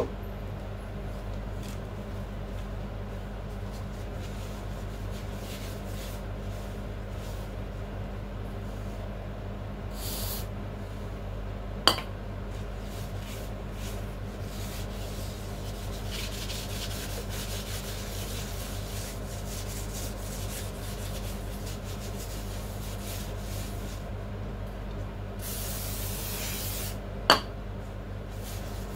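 A gloved hand rubbing and scrubbing the rusty steel base plate of a barber chair, a scratchy rasping sound over a steady low hum. A short hiss of aerosol spray comes about ten seconds in and a longer one near the end. Two sharp clicks stand out, about twelve seconds in and just after the second hiss.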